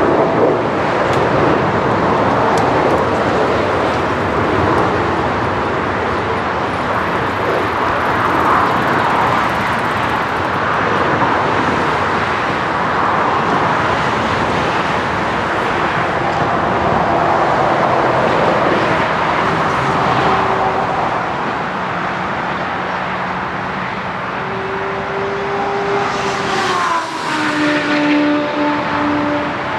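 Boeing 747-8's four turbofan engines at climb power: steady, dense jet noise as the airliner climbs away after takeoff. About two-thirds of the way in the sound changes to a slightly quieter hum with several held tones and a brief falling pitch near the end.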